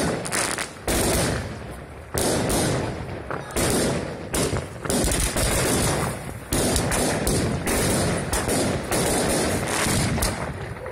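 Fireworks going off: a dense, uneven string of sharp bangs and crackling bursts, several a second.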